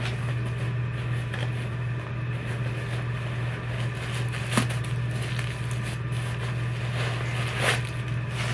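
A steady low hum, with a few light taps and rustles from sneakers and their packaging being handled.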